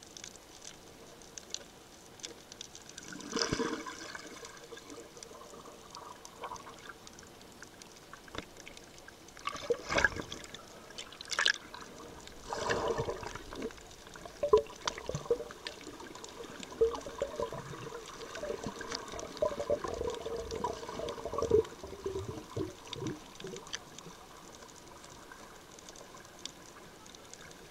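Water heard from underwater: sloshing and gurgling with small bubbling clicks, with a few louder swishes of water movement.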